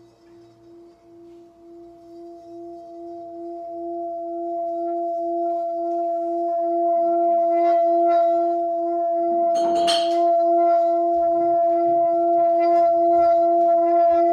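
Metal singing bowl sung by rubbing a wooden mallet around its rim: a steady ringing hum with a pulsing lower tone and a clear higher tone, swelling over the first several seconds and then holding. About ten seconds in there is a brief scraping buzz from the mallet on the rim.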